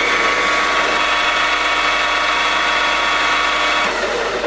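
Boxford STS three-phase lathe spindle running at its top speed of 1500 RPM: a steady whine of several tones from the geared headstock, which is called a little bit noisy. About four seconds in the tones stop and the machine runs down.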